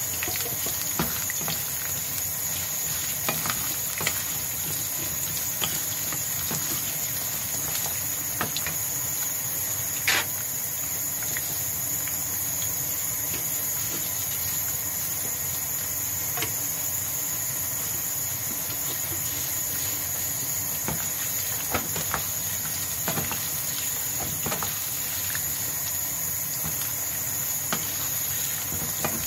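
Carrot and potato chunks sizzling in hot oil in a frying pan: a steady high hiss, with scattered sharp pops and taps as a wooden spatula turns them, the loudest about ten seconds in.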